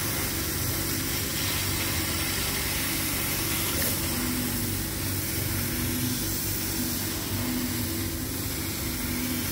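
CO2 laser cutting machine running a cutting pass through 18 mm plywood: a steady hum and hiss, with a short tone that comes and goes every second or two as the machine works.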